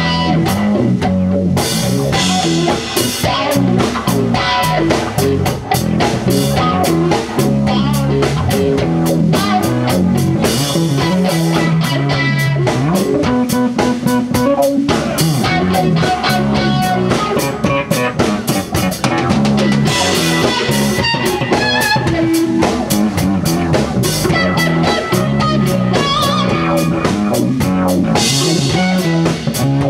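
Live rock band playing an instrumental section: electric guitar playing lead lines over drum kit and bass guitar.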